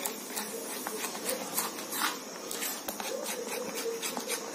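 Steel spoon scraping and clicking irregularly against a plastic bowl while gently folding thick chocolate cake batter.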